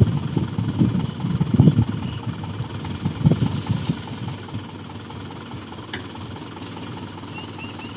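Mahindra tractor's diesel engine running while its hydraulic tipping trolley is raised to dump a load of crop straw; louder and uneven in the first half, easing to a lower, steadier level about halfway through.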